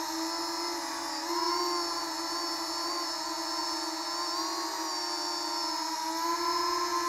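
Transtec Beetle micro FPV quadcopter's motors and propellers whining steadily in flight, the pitch swelling and dipping slightly with throttle.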